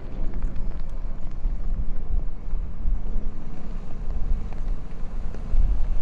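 Wind buffeting the microphone: a loud, gusty low rumble that rises and falls unevenly.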